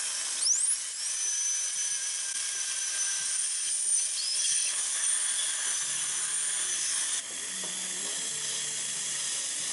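High-speed dental handpiece whining at a high pitch. It spins up with a rising whine about half a second in, then runs steadily, with a change in pitch and level about seven seconds in. A suction tube hisses underneath.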